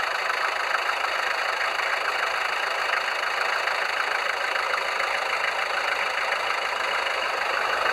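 The twin inboard engines of a Princess 32 motor cruiser idling steadily during a cold start.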